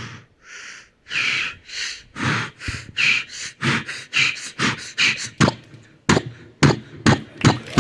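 A man imitating by mouth a hand-cranked farm diesel engine starting up. Breathy puffs come faster and faster and end in a few sharp popping chugs.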